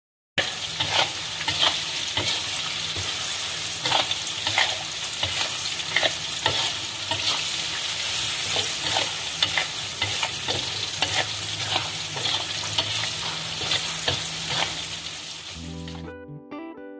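Minced chicken and sliced chilies sizzling in hot oil in a wok while a spatula stirs them, with frequent scrapes and knocks of the spatula against the pan. Near the end the sizzling cuts off and plucked guitar music starts.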